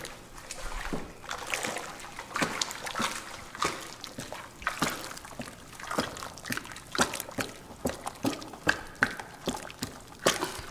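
Liquid sloshing and swirling in a plastic tub as a wooden paddle stirs it round, with a string of short splashes about twice a second. This is a JADAM sulfur batch (sulfur in caustic soda solution) being stirred steadily so the sulfur dissolves.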